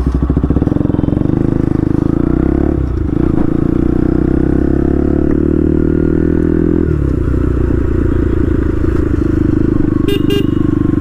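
Bajaj Pulsar NS200's single-cylinder engine through an open Akrapovic exhaust with the dB killer removed, pulling away under acceleration. The pitch climbs steadily and drops sharply with an upshift about seven seconds in, then it cruises steadily. Two short horn beeps sound near the end.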